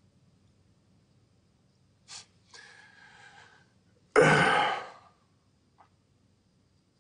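A man's breathing as he cries: a short breath sound about two seconds in, a softer drawn breath, then a heavy sigh out about four seconds in that fades over most of a second.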